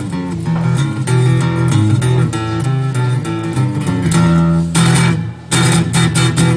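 Solo hollow-body electric guitar playing an instrumental: picked bass notes and chords in a steady rhythm, turning to brighter strummed chords near the end.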